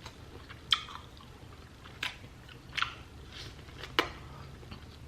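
Close-miked mukbang eating of seafood: chewing with four or five sharp crunching clicks spread through the pause.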